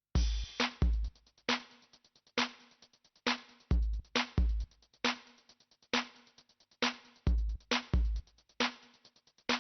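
Background music: an electronic drum-machine beat with kick and snare hits a little under one a second and fast hi-hats between them.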